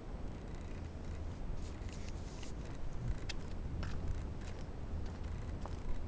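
Low wind rumble on the microphone, with scattered light clicks and scrapes.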